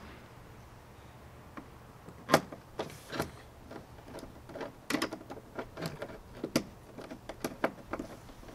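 Hand screwdriver driving bolts into a kayak's mounting bracket: after about two seconds of quiet, a run of irregular clicks and taps begins, the loudest one first.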